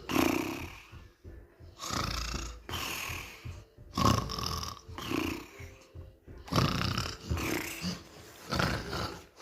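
A person fake-snoring while pretending to sleep: a string of rasping snores, one every second or so.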